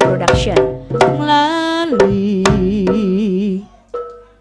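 Javanese jaranan ensemble music: sharp strokes on a two-headed kendang hand drum under a wavering melody line. The music drops out suddenly about three-quarters of the way through, leaving only a brief short note.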